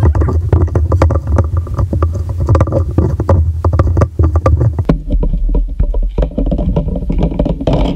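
Slime being stirred and squeezed in a plastic bowl with a metal spoon and a hand: rapid clicks, scrapes and squelches over a steady low rumble of the bowl knocking on the table.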